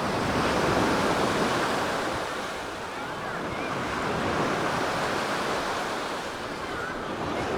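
Sea waves breaking and washing up the beach, a steady rush that swells in the first couple of seconds and again about four seconds in.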